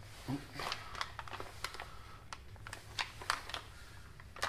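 Foil boil-in-the-bag food pouch crinkling and crackling in the hand, a string of short, irregular clicks and crackles.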